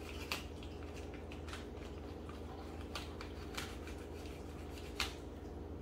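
Plastic packaging on a whole raw chicken being cut and pulled open by hand: scattered small crinkles and clicks, with one sharper click near the end, over a steady low hum.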